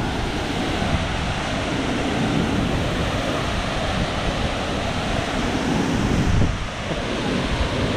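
Salto del Laja waterfall rushing steadily, heard close to the falls.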